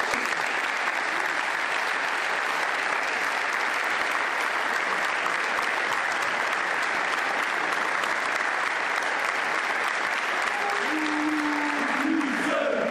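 A crowd applauding steadily, with men's voices starting a chant over the clapping near the end.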